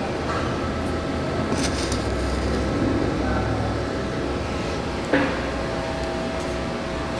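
Steady mechanical hum with a low rumble and faint steady tones, and one sharp knock about five seconds in.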